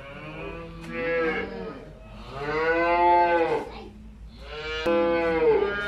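Cattle mooing: three long moos one after another.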